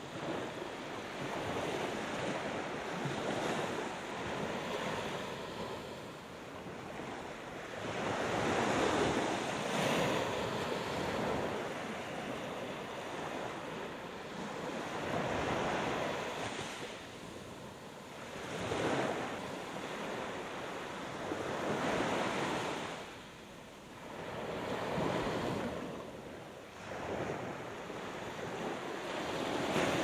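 Gulf of Mexico waves breaking and washing onto the shore, the surf swelling and easing every few seconds.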